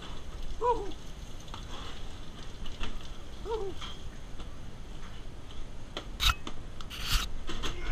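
Clear plastic food containers handled and knocked down onto a stainless-steel counter and fridge drawer, with two sharp clattering knocks near the end. Two short falling squeaks come in the first half, over a steady kitchen background noise.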